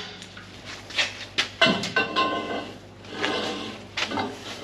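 A steel wrench and cheater pipe clanking and knocking as they are fitted and worked on a seized bolt on a combine, with a brief metallic ring about two seconds in.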